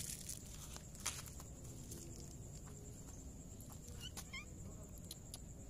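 A calico cat giving a faint, short chirping call about four seconds in, against a steady high-pitched whine, with a sharp click about a second in.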